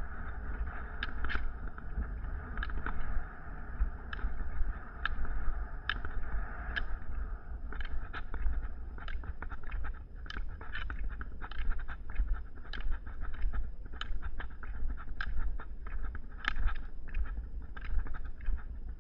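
Steady low rumble and rolling noise of travel over an asphalt trail, with sharp clicks about one or two a second that come more often in the second half.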